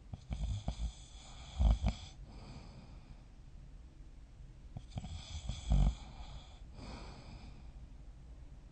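A person snoring while asleep: two long snores about five seconds apart, each building to a loud, low rasp near its end.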